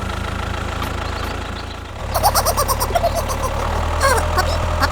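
A steady low engine hum like a vehicle idling, with short high-pitched warbling squeaks over it from about two seconds in.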